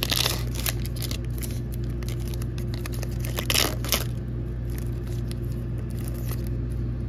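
Foil wrapper of a Pokémon trading-card booster pack being torn open and crinkled, with a burst of tearing at the start and another crinkling rustle about three and a half seconds in as the cards come out. A steady low hum runs underneath.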